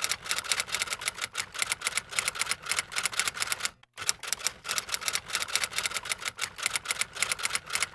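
Typewriter keystroke sound effect: a rapid run of sharp key clicks, about eight to ten a second, with one brief break near the middle.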